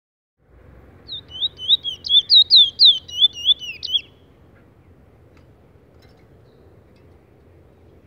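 Caged Trinidad bullfinch, a seed finch, singing a rapid run of clear whistled notes for about three seconds, stopping about halfway through; after that only faint background.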